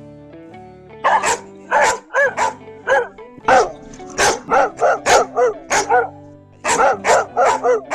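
A puppy barks in a rapid string of short, high-pitched yaps that start about a second in and come in quick clusters, over background music.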